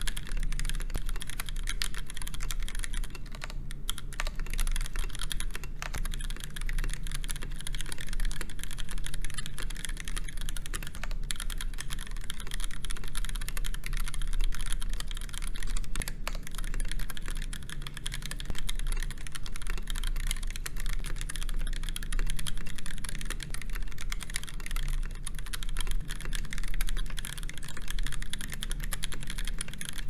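Continuous typing on a KBD8X MKII mechanical keyboard with a polycarbonate top case and aluminum bottom case, brass full plate, stock Gateron Yellow linear switches and GMK keycaps: a rapid, unbroken run of keystrokes. A steady low hum sits underneath.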